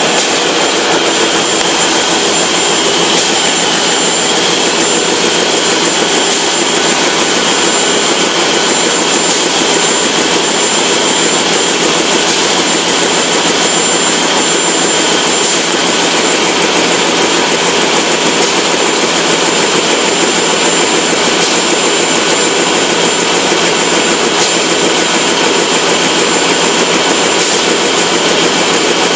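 Fameccanica FNL sanitary napkin production line running: a loud, steady machine din with a thin, constant high whine over it.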